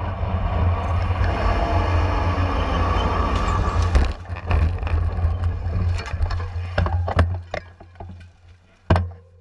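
Wind rumbling on a bike-mounted camera's microphone as a road-racing bunch rides at speed. About four seconds in, a pile-up begins: a run of sharp knocks and clattering as bicycles and riders go down. It ends with one hard knock near the end, after which it goes quiet.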